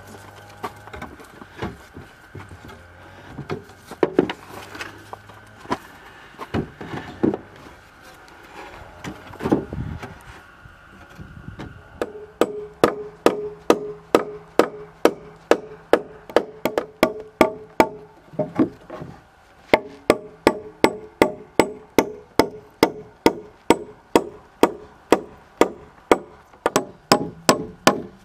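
Scattered knocks and wood being handled, then from about twelve seconds in a steady run of sharp blows of a hand tool on wood, about two or three a second, each with a short ring.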